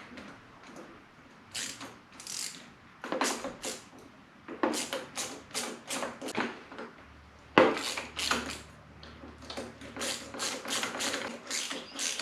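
A 13 mm ratchet clicks in short runs of strokes as the nuts on a steel U-bolt are tightened. There is one sharper knock about seven and a half seconds in.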